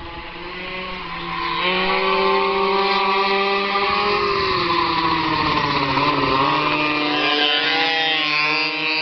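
Two Blata B1 pocket bikes' small two-stroke engines running at high revs, getting louder about a second and a half in as they come closer. Their pitch dips around six seconds in as the riders ease off, then climbs again as they open the throttle.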